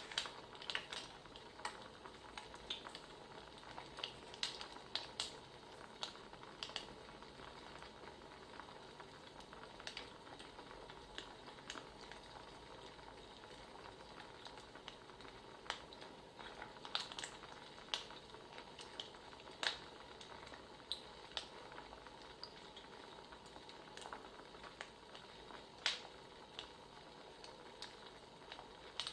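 Crackling wood fire: a steady soft hiss with irregular sharp pops and snaps, a few louder than the rest.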